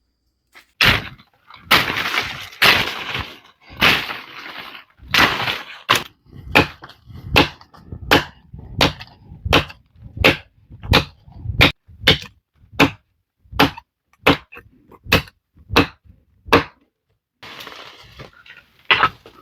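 Repeated chopping blows on wood. A few longer, rougher strokes come first, then a steady run of sharp strikes about one and a half a second, which stop about three seconds before the end.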